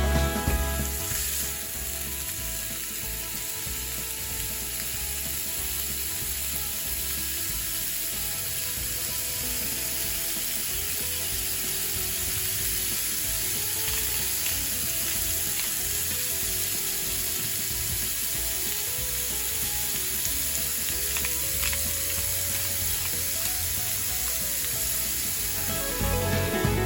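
Steady sizzling hiss with faint scattered crackles.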